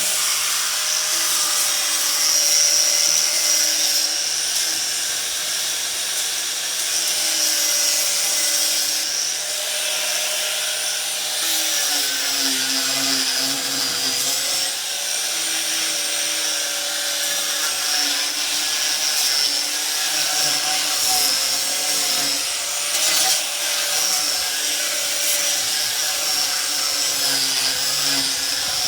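A 4½-inch angle grinder fitted with a 50-grit sanding disc runs steadily as it sands wood. Its whine dips slightly in pitch now and then as the disc is pressed into the wood.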